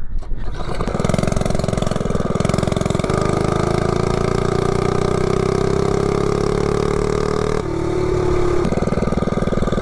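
Single-cylinder 98cc Coleman 3hp mini bike engine pulling away under throttle on a 0-30 mph acceleration run. Its pitch climbs slowly for several seconds, then drops abruptly to a lower steady note about seven and a half seconds in.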